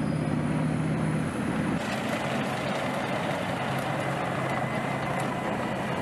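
A main battle tank's engine running as the tank drives, with a steady low hum and a rushing noise. About two seconds in the sound changes as the tank ploughs through shallow water.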